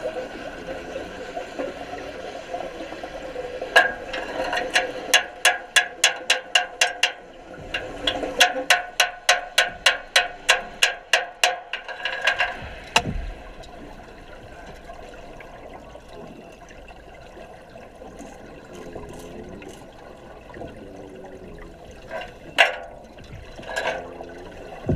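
Underwater sounds in a diving tank: a steady watery background with two runs of sharp, evenly spaced clicks, about three a second, then a couple of single clicks near the end.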